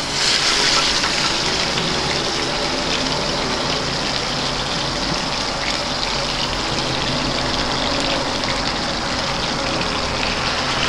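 Beef chuck roast searing in smoking-hot vegetable oil in a cast iron Dutch oven: a loud, steady sizzle.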